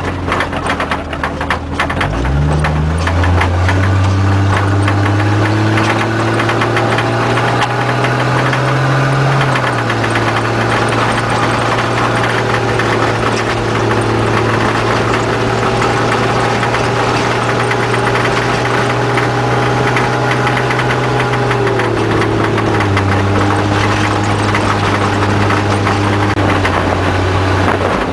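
Off-road race vehicle's engine running hard over a gravel road, heard from inside the cab. Early on there is a clatter of rattles. The engine pitch climbs about two seconds in, then holds fairly steady, stepping down once about a third of the way through and again later.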